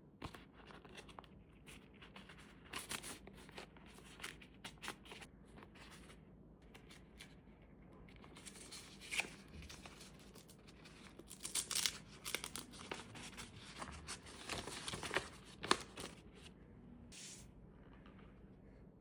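Packaging being handled and opened: irregular rustling, crinkling and tearing of wrapping, in uneven bursts with a few sharper crackles.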